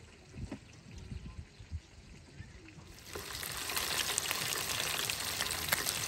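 Small whole fish frying in hot oil in a metal tray: a steady sizzle full of small crackles that starts suddenly about three seconds in. Before it there are only faint low thumps.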